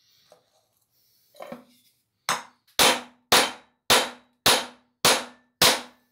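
A hammer striking a gas stove burner head: a couple of faint knocks, then a steady run of about seven sharp blows, roughly two a second, each with a short metallic ring. The blows reshape the burner to widen its narrowed gas outlet gap, the cause of its poor, sooty burning.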